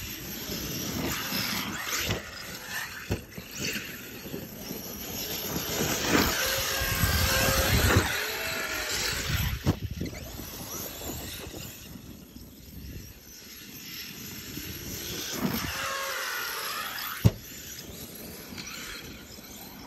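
Two Arrma Kraton RC trucks, with TP Power brushless motors and Hobbywing Max6 speed controllers, whining as they are throttled up and down, the pitch rising and falling in sweeps over a rumble of tyres on grass. A few sharp knocks cut in, the loudest about 17 seconds in.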